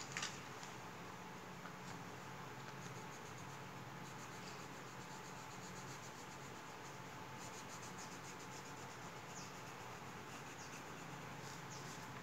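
Faint scratching of a coloured pencil stroking across paper, in short runs of fine rapid ticks over steady hiss, with a sharp click at the very start.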